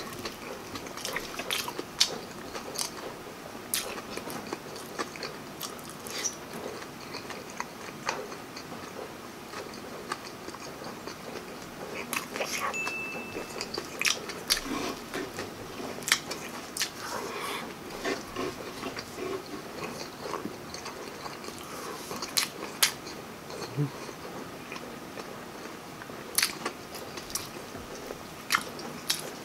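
Close-miked eating: chewing and smacking on barbecued pork steak and rice, with sharp mouth clicks and small bites scattered throughout.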